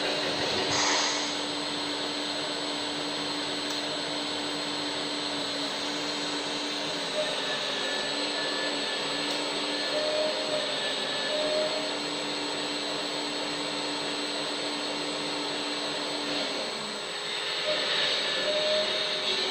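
Electric hydraulic pump of a 1/14-scale RC excavator running with a steady whine. Its pitch dips about seventeen seconds in, as the load changes.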